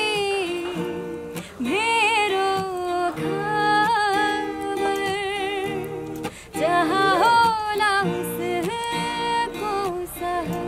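A woman singing a Nepali song in several phrases with wavering held notes, accompanying herself on acoustic guitar.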